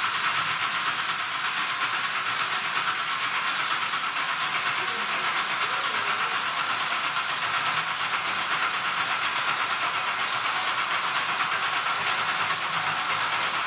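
Pulling truck's newly installed race engine running steadily just after being fired up, heard as a loud, even, hissy din.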